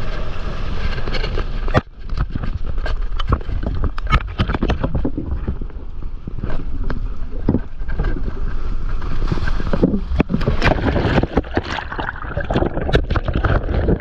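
Wind buffeting the microphone over water rushing and splashing close by, full of sharp crackles and a heavy low rumble. At the end the microphone is right in churning white water.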